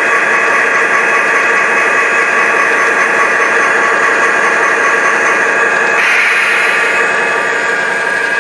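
Model railroad freight train running past behind two SD40 model diesel locomotives: a loud, steady rolling noise with a faint whine that shifts in tone about six seconds in.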